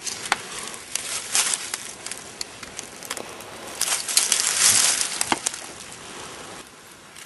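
Dry leaves and twigs rustling and crackling as hands gather and rearrange them into a kindling pile, with a few louder crunches.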